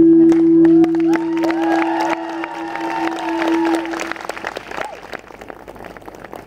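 Audience applauding and cheering with whoops, over the last held note of the song's backing music, which stops about four seconds in. The applause thins out toward the end.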